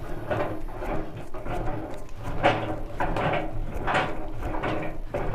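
Irregular knocks and scraping from a homemade screw-operated silage press being handled and raised.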